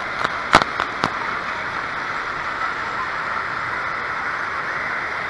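Steady rush of water and echoing indoor water-park noise, heard through a waterproof action-camera housing, with a few sharp knocks and splashes against the camera in the first second.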